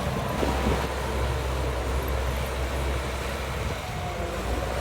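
Diesel engine of heavy earthmoving machinery running steadily, a low drone under broad mechanical noise.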